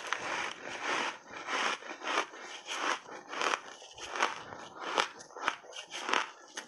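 Teeth crunching through ice chunks mixed with berries and dusted with matcha and milk powder: a run of irregular, crisp crunches, about two a second.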